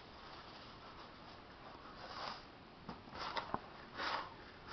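Faint rustling and short soft swishes as dry crumbs and ingredients are handled over a bowl, with a couple of light clicks about three and a half seconds in.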